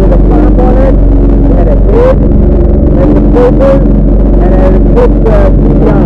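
Jet ski engine running steadily under way, loud and unbroken, with a few brief rushes of water or wind noise.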